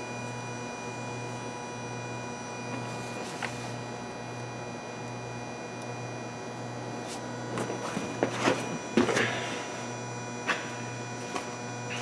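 Steady low electrical hum, with a cluster of sharp clicks and rustling about seven to nine and a half seconds in and single clicks after: hands fitting scope test leads onto a fuel injector connector under the hood.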